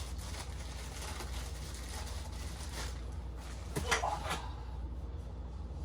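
Quiet handling noise from unpacking animatronic parts out of a box, with a brief clatter about four seconds in, over a steady low hum.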